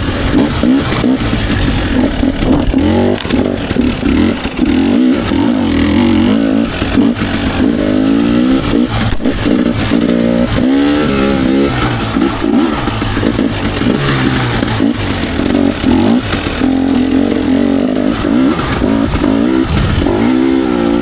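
Dirt bike engine running under constant throttle changes, its pitch repeatedly rising and falling in short revs as the bike is ridden over rough singletrack.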